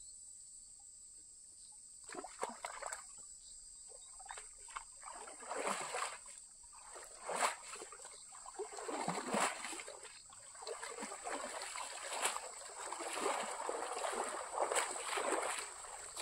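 Water splashing, sloshing and dripping as a cast net loaded with tilapia is gathered and hauled up out of shallow water, starting about two seconds in. A steady high chirring of insects runs underneath.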